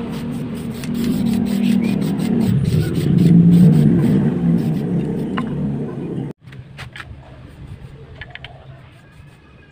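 Aerosol spray-paint can hissing in short, repeated bursts, over a louder low rumble that swells to a peak about three and a half seconds in and then fades. The sound cuts off suddenly just after six seconds, leaving a quieter background with a few light knocks.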